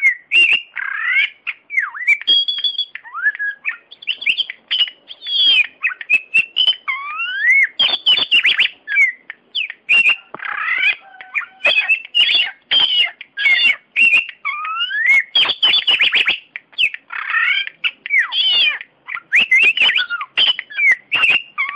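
Oriental magpie-robin (kacer) singing a loud, almost unbroken, varied song of rising and falling whistles mixed with sharp clicking notes.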